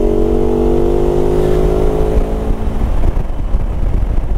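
Motorcycle engine held at high revs while overtaking, a steady engine note that dies away about three seconds in as the throttle eases, over a constant low wind rumble.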